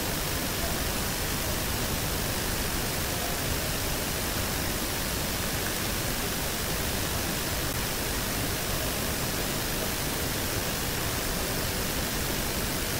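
Steady hiss and background noise of an outdoor field recording played back, with no knocks or calls standing out.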